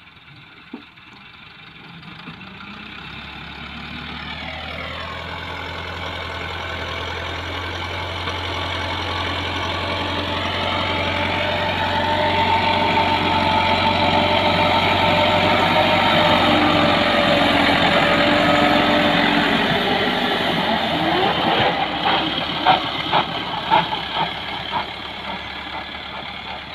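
Massey Ferguson 375 tractor's four-cylinder diesel engine working as it pushes soil with its front blade, growing louder as it comes close and fading as it pulls away. The engine note drops about five seconds in and rises again after about twenty seconds, and a run of sharp knocks comes near the end.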